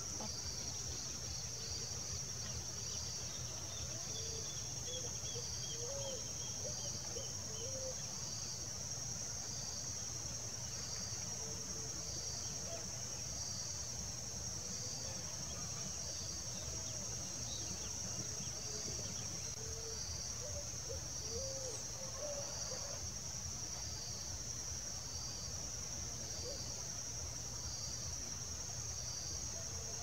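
Insects trilling steadily at a high pitch, with a second insect chirping at an even pace a little less than once a second... about every 1.3 seconds, under a low steady background rumble.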